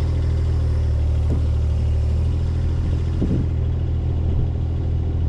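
An engine running steadily at idle, with a deep, even hum and a couple of faint knocks.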